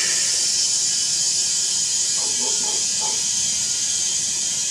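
Compressed air hissing steadily through an air-hose chuck into the valve stem of a riding-mower tractor tire as it is inflated. The hiss cuts off suddenly at the end as the chuck comes off the valve.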